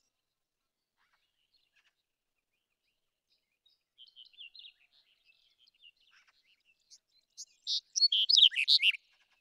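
Black-headed bunting singing: faint, soft twittering notes in the middle, then one loud, short song phrase of rapid high notes about a second and a half long, starting about seven and a half seconds in.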